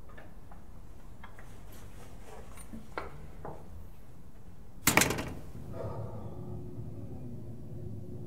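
An apartment door slammed shut about five seconds in: one sharp double bang with a brief ringing after. Lighter clicks and knocks come before it.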